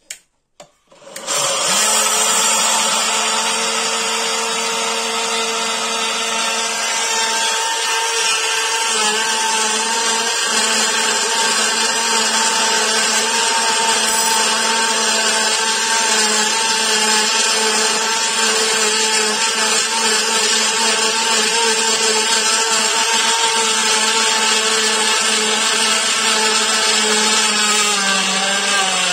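Atomberg BLDC mixer grinder switched on with a click, its motor starting about a second in and then running steadily at high speed with a whining tone while grinding dry rice into flour. The pitch dips slightly near the end.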